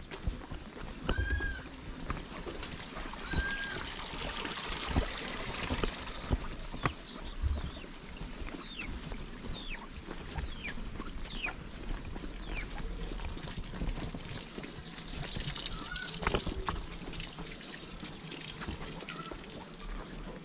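Water trickling steadily in a narrow stone channel beside a paved path, with footsteps on the stones. Quick falling bird chirps come in a run midway, and a few short higher calls sound near the start.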